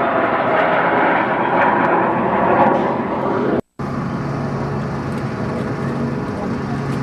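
Airplane engine passing overhead, its pitch slowly falling as it flies by. About halfway through the sound cuts out abruptly and a steadier, lower engine hum follows.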